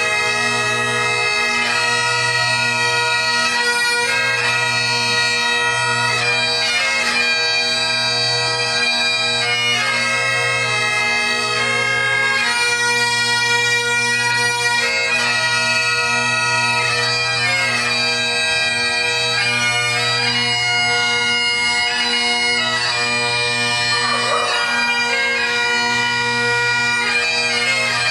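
Great Highland bagpipes, several pipers playing a tune over the steady hum of the drones.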